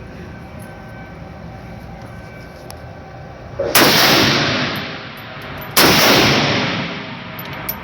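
Two rifle shots about two seconds apart, each with a long echoing tail.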